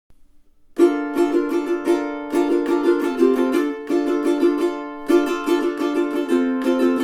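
All-solid mango tenor ukulele (Big Island OE-TRC-EB), played acoustically: chords strummed in a steady rhythm, starting just under a second in, with the chord changing a few times.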